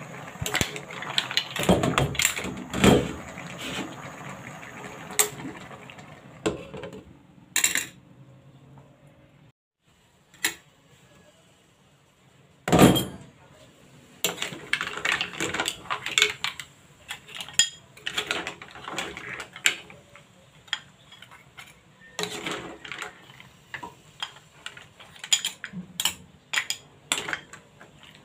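Metal spoon clinking and scraping in a pan of cooked mussels, with the shells knocking together as they are stirred and scooped out. The clatters are irregular, with one loud clank near the middle.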